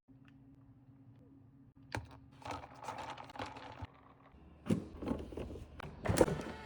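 A run of light clicks and taps, like small objects being handled, starting about two seconds in and getting louder and busier in the second half, over a faint low hum.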